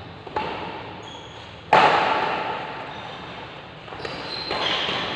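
Badminton rally: several sharp racket hits on the shuttlecock and footfalls on the court, each ringing out in the hall. The loudest hit comes about a third of the way in.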